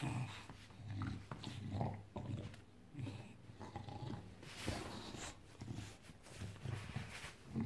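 English bulldog growling and grunting in rough play, a run of short low rumbles about once a second.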